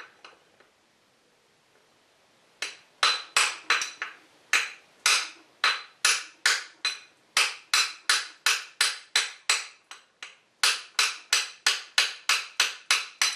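Hammer blows on a copper drift, driving a stuck shaft out of a lathe's feed gearbox: a steady run of sharp, briefly ringing metal strikes at about three a second, starting a couple of seconds in, with one short pause near the end.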